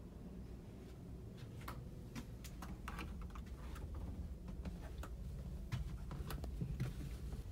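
Faint scattered clicks and taps of someone climbing the steps to an upper berth and handling the handrail, over the ferry's steady low hum.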